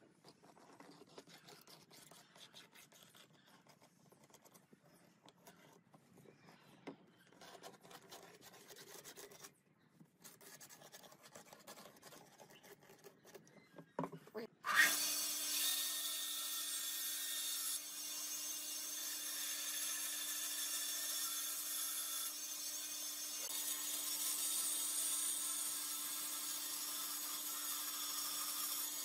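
Faint scratching of a pencil tracing a line on pine boards. About halfway through, a table-mounted power saw with a thin reciprocating blade starts with a jolt and runs steadily with a constant hum, cutting a pine board.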